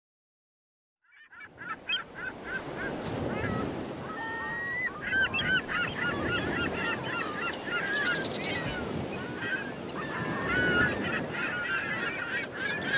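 A flock of birds calling, many short overlapping calls over a steady rushing background, starting about a second in after silence.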